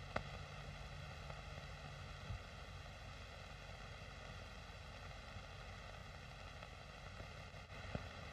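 Steady hiss and faint hum of an old 1930s film soundtrack, with one faint click near the end.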